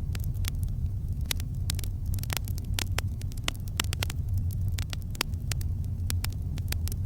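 Campfire crackling, with irregular sharp pops several times a second over a steady low rumble.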